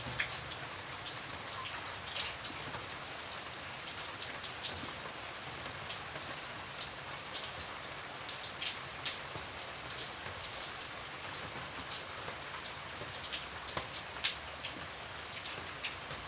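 Light rain falling steadily, a soft even hiss with scattered drops ticking sharply on a hard surface, now and then a louder single drop.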